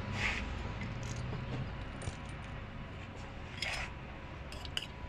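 A few light metallic clinks and clicks of small steel parts being fitted into an inline six-cylinder diesel injection pump, over a low steady hum.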